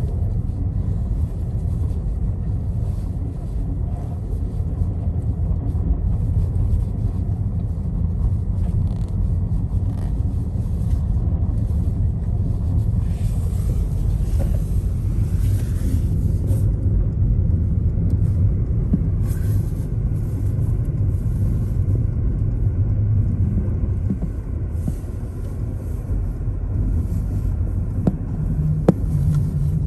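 Car driving on snowy roads: steady low road-and-engine rumble, with a louder hiss for a few seconds around the middle and a short click near the end.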